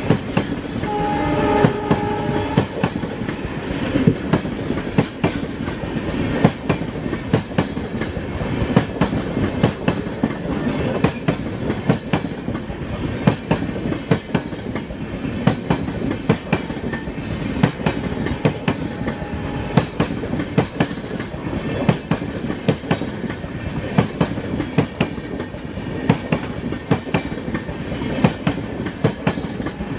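Passenger coaches rolling past close by, their wheels clacking over the rail joints in a steady run of sharp clicks over a continuous rumble.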